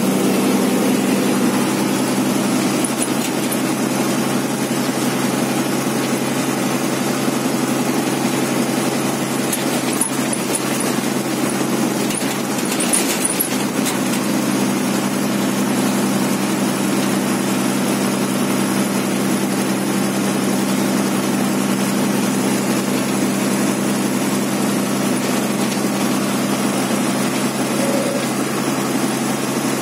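MSRTC state bus heard from inside the passenger cabin while cruising on the highway: its diesel engine drones steadily over the road noise. A brief hiss comes about thirteen seconds in.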